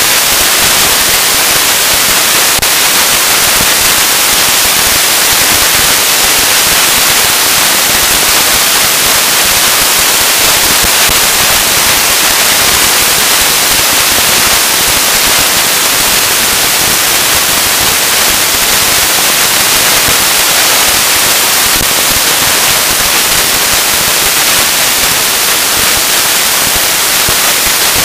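Loud, even static-like hiss, strongest in the high range, that never changes in level and shows no separate knocks, voices or tones.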